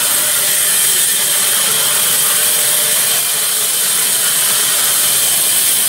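Sawmill band saw cutting lengthwise through a large timber log: a steady, loud hiss of the blade running through the wood.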